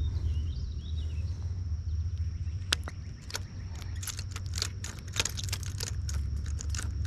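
Wind rumbling on the microphone in lakeside brush. A bird chirps a few times in the first second, then come scattered sharp clicks and rustles from leaves and rod handling, thickest in the middle seconds.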